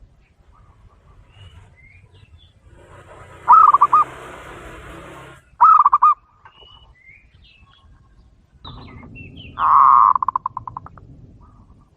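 A dove cooing in three bouts of quick pulsed notes a few seconds apart; the last begins with a held note that breaks into a fading trill. Faint high chirps of small birds come in between.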